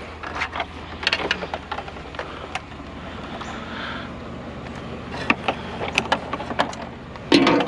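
Irregular knocks and clicks of scrap items being handled and shifted into place, over a steady low hum, with a louder thump near the end.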